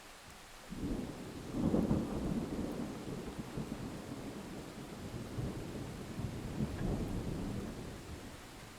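A thunder clap that breaks suddenly about a second in, then rolls and rumbles low for several seconds with a second swell near the end before fading, over a steady hiss of rain.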